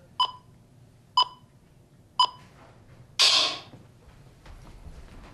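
Three short electronic beeps, evenly a second apart, a countdown or sync tone ahead of a film take. About a second after the last beep comes one loud, brief burst of noise.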